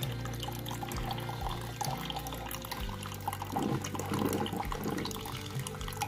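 Brewed coffee pouring in a steady stream from a Breville Grind Control drip coffee maker's filter basket into a glass carafe.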